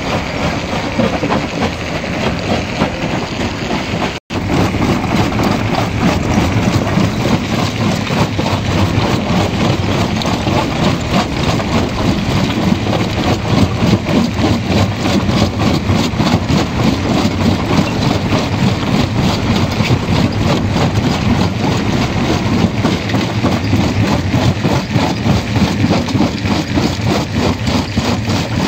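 Stone jaw crusher running under load: rapid, rhythmic pounding of the swinging jaw with the cracking and grinding of rock in the crushing chamber, over the steady hum of the drive. The sound drops out for an instant about four seconds in.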